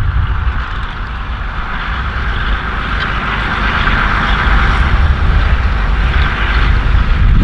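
Massey Ferguson 6170's six-cylinder diesel engine running steadily under load as it pulls a four-furrow reversible plough, gradually growing louder as it approaches, with wind buffeting the microphone.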